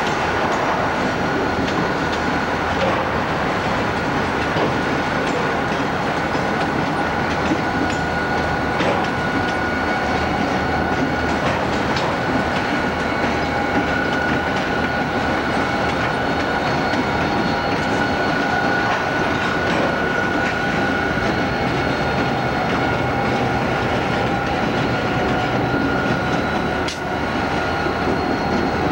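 Several Southern Pacific diesel-electric freight locomotives rolling slowly past, their engines running steadily with a high whine. Wheels click over the rail joints.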